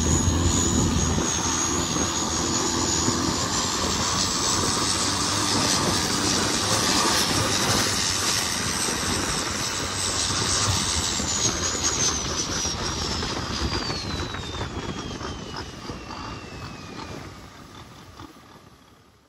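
Turbocharged longtail riverboat engine running at speed, with the rush of wind and water and a high whine that slides steadily down in pitch over several seconds. The whole sound fades out near the end.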